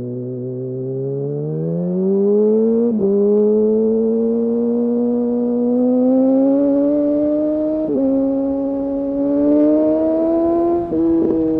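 2008 Yamaha R1's inline-four engine accelerating under hard throttle, its pitch climbing with the revs. The pitch drops sharply three times as it shifts up a gear: about three seconds in, about eight seconds in and near the end.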